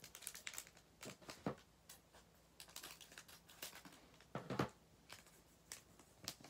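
The foil wrapper of an Elite Extra Edition baseball card pack being torn open and crinkled by hand. It makes a string of irregular crisp crackles, with the loudest tear about four and a half seconds in.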